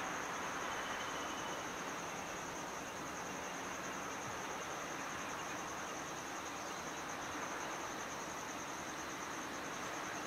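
Insects chirring steadily in a high, rapidly pulsing trill, over a constant low haze of distant background noise.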